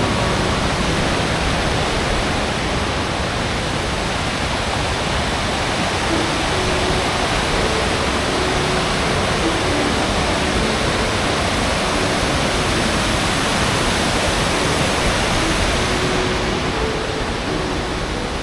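Waterfall's water rushing, loud and steady, its highest hiss easing slightly near the end.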